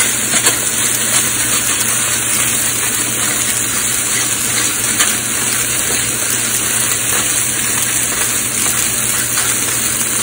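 Ribeye steaks sizzling steadily as they sear in hot cast iron pans.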